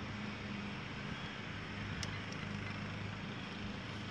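Steady low mechanical hum, with one faint click about two seconds in.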